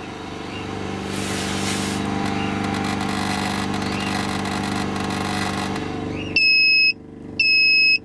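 Victron MultiPlus Compact 24/1600 inverter overloaded by a washing machine's 2 kW water heater: a steady hum and hiss cuts off about six seconds in, and the inverter's overload alarm then beeps twice, high-pitched, each beep about half a second long.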